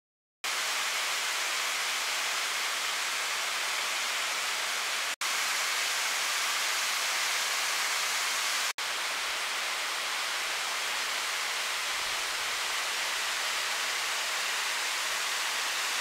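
Waterfall: a steady rush of falling water, starting abruptly about half a second in and cutting out twice for a split second near the middle.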